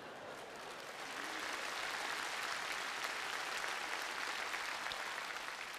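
Studio audience applauding and laughing; the applause swells about a second in and holds steady.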